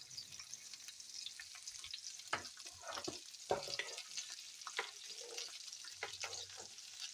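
Bell peppers and onions sizzling as they sauté in a hot pan, with irregular scrapes and knocks of a utensil stirring them.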